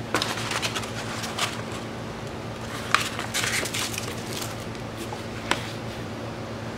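Hands handling supplies on a work table: rustling with a few sharp knocks, about three seconds in and again near the end, over a steady low hum.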